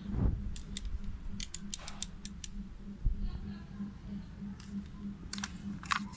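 Hand work on small hard parts: scattered sharp clicks and light taps, with a low thump near the start and another about three seconds in, over a low hum that pulses a few times a second.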